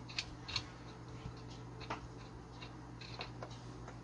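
Scattered light clicks and ticks of a spark plug being unscrewed by hand and lifted out of a small gas brush cutter engine, over a steady low hum.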